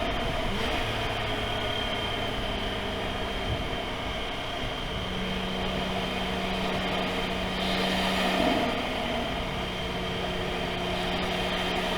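Toyota GR Supra (A90) heard from inside the cabin, its engine holding a steady, near-constant note under a steady wash of road noise.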